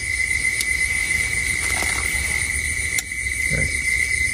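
Insects chirring in a steady, high-pitched drone, with a low rumble underneath.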